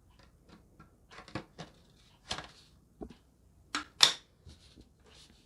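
Plastic vacuum cleaner parts being handled and fitted together: a series of separate clicks and knocks, the loudest about four seconds in.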